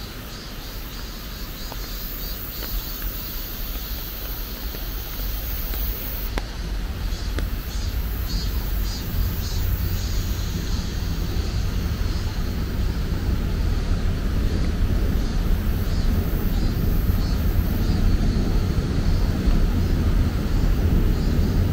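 Rain-swollen stream rushing, a steady roar with a deep rumble that grows gradually louder.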